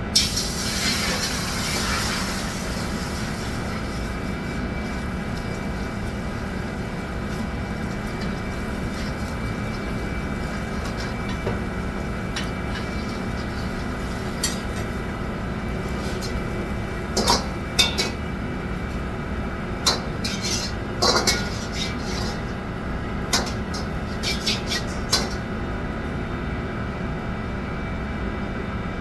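Commercial kitchen work: a steady machine hum runs throughout, with a brief hissing rush at the start. In the second half come a dozen or so sharp clinks and clanks of utensils against pots and dishes.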